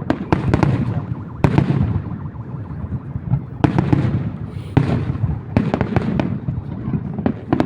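Fireworks bursting overhead: a rapid, irregular string of sharp bangs and crackles over a continuous low rumble of booms and echoes.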